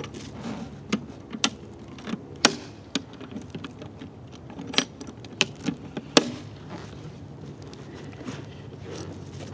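Handling of a latched plastic equipment enclosure, the stepper controller of a magnetic loop antenna, as it is turned over and set back into a cardboard box: scattered sharp clicks and knocks, the loudest about 2.5 and 6 seconds in.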